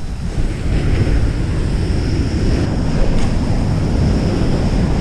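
Surf washing up the beach, with wind buffeting the microphone.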